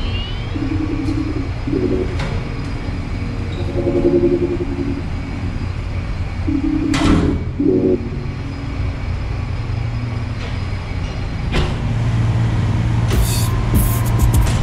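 Steady low rumble of the cargo ship's machinery heard inside the vessel, with a single sharp knock about halfway through. Near the end the low hum grows louder with a few sharp clicks, as the air-conditioning plant room is entered.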